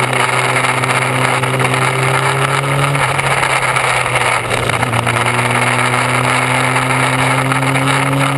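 Motorcycle engine running on the move, heard from a bike-mounted action camera under heavy wind and road rush. The engine note thins out about three seconds in and picks up again near five seconds, then slowly rises.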